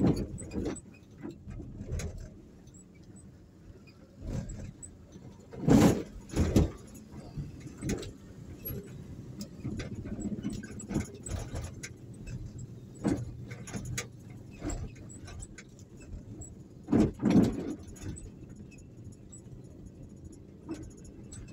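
Ride-along road noise: the low rumble of the vehicle carrying the recorder as it moves down a street, broken by sharp knocks and rattles. The loudest come as a double knock about six seconds in and another about seventeen seconds in.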